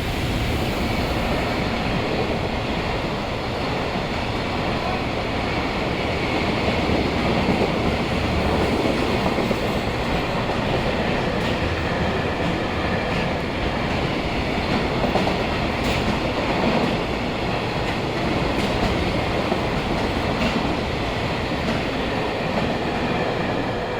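Freight train hauled by an EF210 electric locomotive passing, its wagons' wheels running steadily over the rails. The sound comes in at full strength at the start and stays loud and even throughout.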